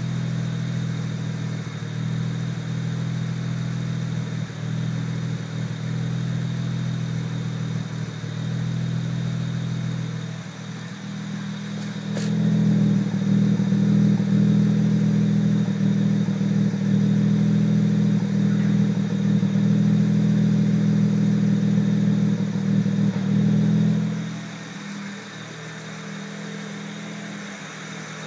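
BMW 335i's N54 twin-turbo straight-six idling roughly with irregular stumbles, a misfire-like rough idle that sets no fault code. Louder from about 12 s in until shortly before the end.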